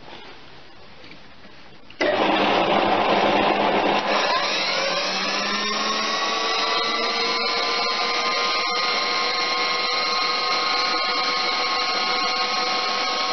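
A tool post grinder on a metal lathe switches on about two seconds in with a sudden loud onset, after quiet background noise. It comes up to speed and settles into a loud, steady motor whine of several tones that rise briefly and then hold level.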